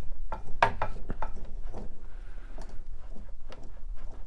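Wooden chair frame clicking and knocking irregularly as a loose glued joint is worked back and forth by hand to pull it apart.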